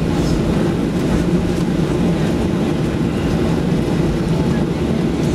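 Steady cabin noise inside a Boeing 737 airliner as it taxis: the jet engines hum at low taxi power, over a low rumble of the aircraft rolling along the taxiway.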